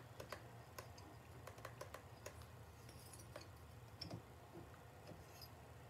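Near silence with faint, irregular light clicks and taps of metal as a head bolt is started by hand into a Honda CB350 cylinder head and the head is wiggled on its dowels, over a low steady hum.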